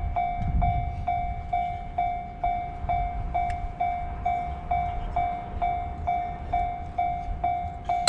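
Japanese railway level-crossing warning bell ringing steadily, about two strokes a second, over a low rumble.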